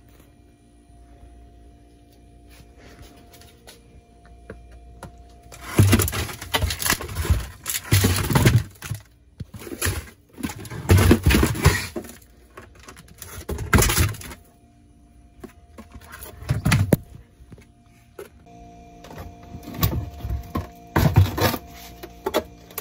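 Tubs of ice cream being shifted and knocked against each other in a freezer, in several bursts of rummaging with dull thuds, over a faint steady hum.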